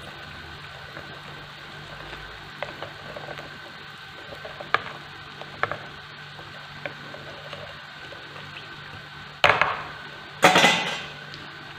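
Fingers of choux-like dough deep-frying in hot oil in a pan: a steady sizzle with a few sharp crackling pops. Near the end come two louder handling noises about a second apart.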